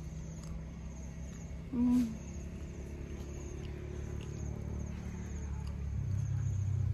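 Crickets trilling in a fast pulsing chirp over a steady low rumble that grows louder near the end. A short hummed "mm" comes about two seconds in.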